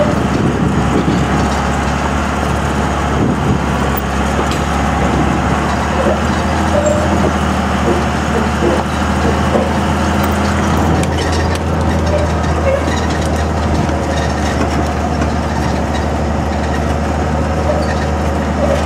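A 2002 Dodge Ram's 24-valve Cummins 5.9-litre turbo-diesel straight-six runs at a steady drone, working under load as it tows a trailer carrying a dozer of about 22,000 lb.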